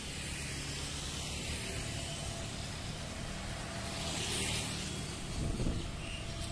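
Twin-engine jet airliner on final approach with its landing gear down. Its engines make a steady rumble and hiss that grows louder as the plane comes closer, and a faint whine joins in during the second half.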